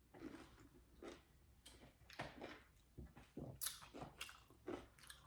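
A person chewing and biting into a lime wedge dressed with Tajín and chamoy: a quiet run of short, irregular chewing sounds, about two a second.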